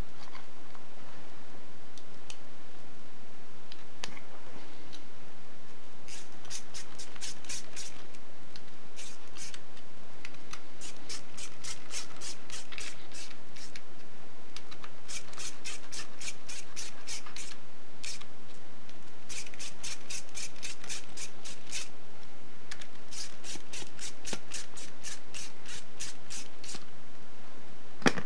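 Hand ratchet clicking in runs of one to three seconds, about five clicks a second, as the bolts of a crankshaft rear oil seal housing are run down on a Land Rover 300 Tdi engine block ahead of final torquing.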